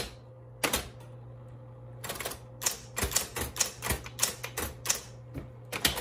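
Smith Corona Coronet electric typewriter: its motor hums steadily while the typebars strike in sharp irregular clicks. There is a single strike a little before a second in, then quick typing at several strikes a second from about two seconds in.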